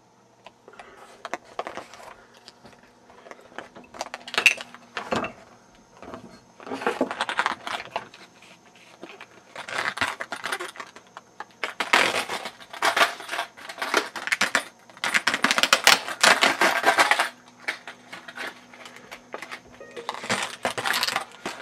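Metallic rattling and clinking in repeated bursts from a large padlock and small metal tools being handled, busiest in the middle.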